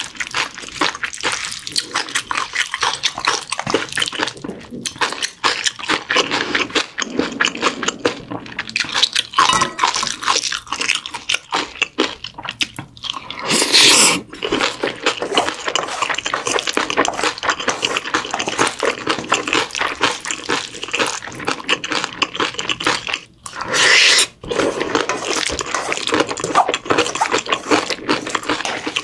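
A wooden spoon mixing sticky rice and vegetables in a stainless steel bowl: quick, wet clicking and scraping. Two short, louder rushes of sound come about halfway through and again later.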